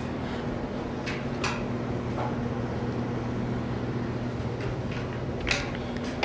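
Classroom room tone: a steady low hum with a few scattered light taps and knocks, the sharpest about five and a half seconds in.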